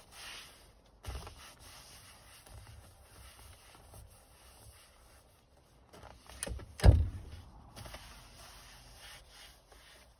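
Leather SUV seat being wiped and brushed by hand: soft rubbing and handling noises with a few knocks, the loudest a sharp thump about seven seconds in.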